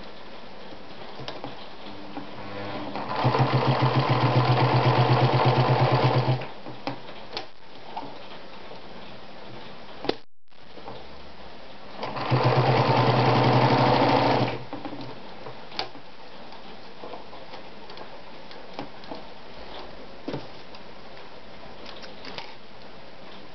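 Anker Automatic RZ sewing machine running at a steady stitching speed while sewing a strip of leather, in two runs of about three seconds and two seconds. Light clicks and handling noises between the runs.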